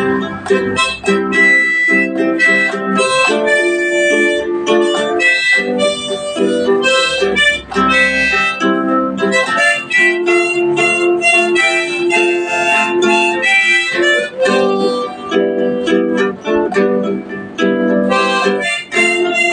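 Harmonica playing a melody over a strummed acoustic guitar, as an instrumental break with no singing.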